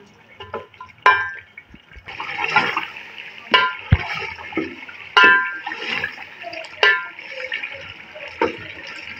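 Beef pieces frying in hot oil in a metal pot, a steady sizzle that grows louder about two seconds in, while a metal spatula stirs and scrapes the meat, striking the pot with several short ringing clinks.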